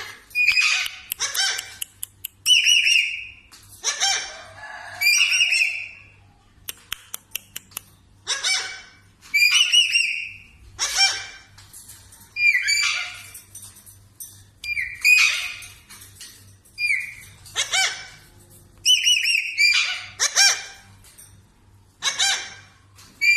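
A parrot calling over and over in short, whistle-like squawks, about one a second. About seven seconds in there is a quick run of sharp clicks.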